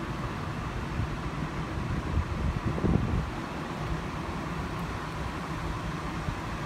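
Steady mechanical hum and low rumble with a faint high whine, with a louder rumble swelling briefly about two to three seconds in.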